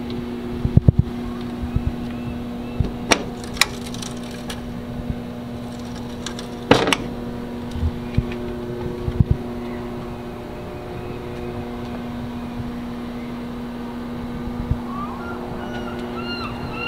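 Fire truck's engine idling with a steady, even hum, broken by a few sharp clicks. Repeated short high chirps come in near the end.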